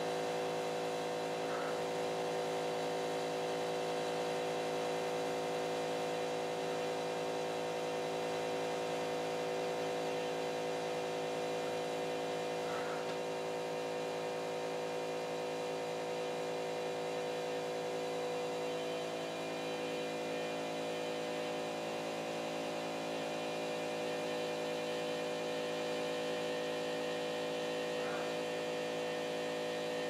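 CNC drawing machine's motors and electronics humming steadily, several steady tones at once, with a few faint ticks.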